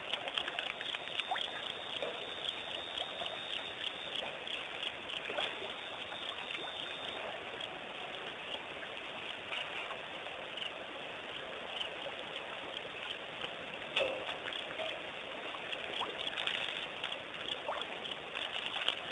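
Night ambience at a waterhole: a steady hiss crowded with small ticks and crackles, with one sharper knock about 14 seconds in.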